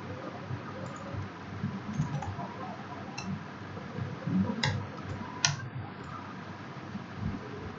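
Computer keyboard keys being typed in short irregular runs, with two sharper key clicks about four and a half and five and a half seconds in.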